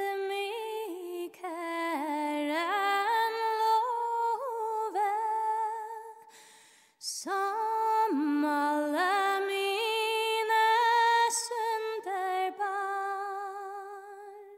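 A single voice singing a slow melody unaccompanied, with vibrato on held notes, in two phrases broken by a short pause about halfway through.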